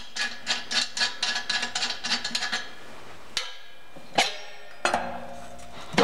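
Steel T-handle screw clamp on a homemade waste-oil stove being turned by hand to unscrew it: a fast run of metallic clicks, about four a second, for the first two and a half seconds. Then a few separate metal knocks as the stove's front cover is taken off.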